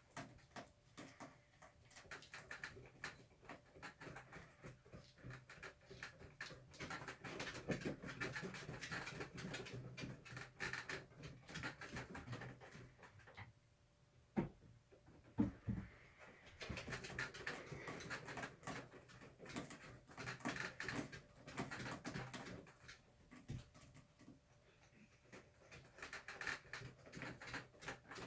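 Cat exercise wheel being run on by cats: rolling rumble with quick patter of paws, in long spells that ease off from about thirteen to sixteen seconds, where two sharp knocks stand out, then pick up again.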